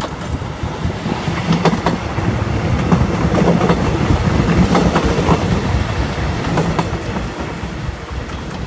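Hyundai Rotem diesel multiple unit passing close by: a steady low engine hum under the rumble of the cars, with sharp clicks of the wheels over rail joints. It is loudest about halfway through and grows quieter as the train moves away.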